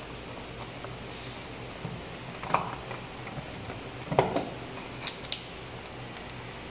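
A white plastic lamp receptacle handled and pressed onto a plastic utility box: two short plastic knocks about two and a half and four seconds in, then a few lighter clicks, over a steady low hum.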